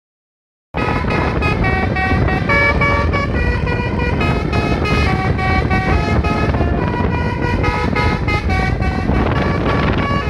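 Telolet-style basuri multi-trumpet electric horn mounted on the roof, playing a fast melody of short notes that starts just under a second in, over a low rumble.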